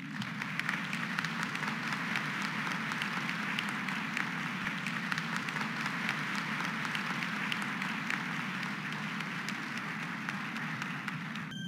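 Large audience applauding steadily, a dense patter of many hands clapping; it cuts off suddenly near the end.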